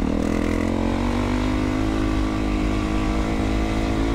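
2012 Yamaha WR450F dirt bike's single-cylinder four-stroke engine running under steady throttle. Its pitch rises a little in the first second and then holds steady.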